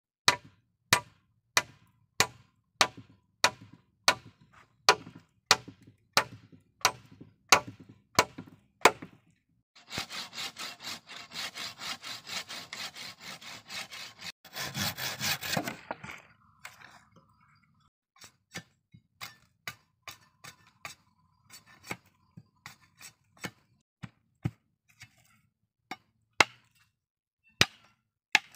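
Machete blade striking a bamboo pole in steady chops, about one and a half a second. About ten seconds in, a hand saw cuts through a bamboo pole in quick back-and-forth strokes for about six seconds. After that come sparser single machete chops on bamboo.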